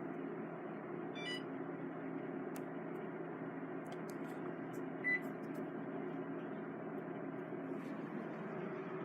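Mitsubishi Kirigamine room air conditioner running with a steady hum and airflow noise. A short electronic beep sounds about a second in, and another single beep comes about five seconds in.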